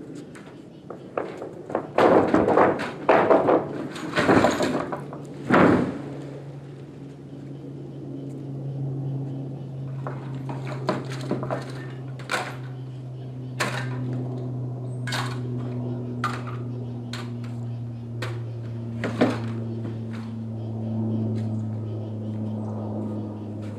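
A quick cluster of loud, heavy thunks and knocks lasting a few seconds. After it comes a steady low hum, with sharp knocks roughly once a second.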